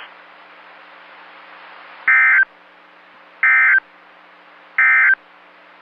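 Three short bursts of Emergency Alert System SAME digital data, the end-of-message code that closes the alert. They sound as harsh buzzing chirps about a second and a half apart. A steady radio hiss and faint hum lie beneath.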